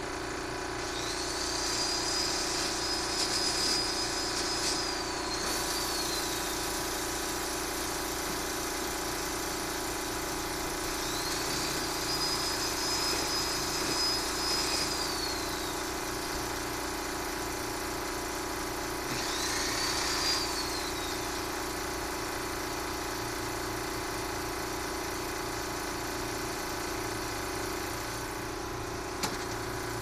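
Handheld electric angle grinder switched on three times: each time a high whine rises, holds steady for a few seconds, then winds down as it is released, the third run brief. Under it a fan hums steadily throughout.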